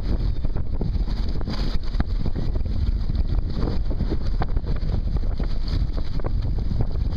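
Strong wind buffeting the microphone over rough, choppy sea: a loud, steady, low rumbling noise.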